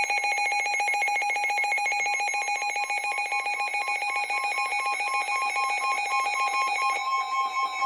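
Emergency alert attention tone: a steady electronic alarm made of a couple of pitched tones with a fast, even flutter, sounding before a tornado warning message.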